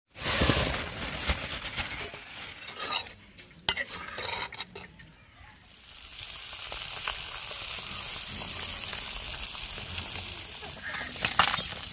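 Small spice-coated fish frying in oil on a flat iron pan, hissing and sizzling. The sizzle comes in patches with a few sharp clicks at first, then settles into a steady sizzle from about halfway through.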